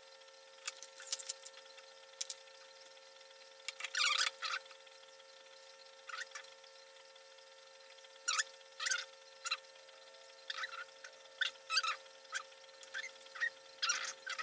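Small plastic wiring connectors and wires being handled and pushed into their housings: scattered short clicks and scratchy rustles in irregular clusters, with a faint steady electrical hum underneath.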